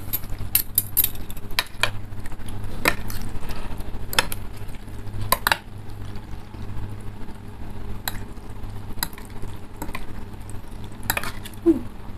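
Metal forks and spoons stirring instant noodle soup in ceramic bowls, with scattered sharp clinks of utensils against the bowls over a low steady hum.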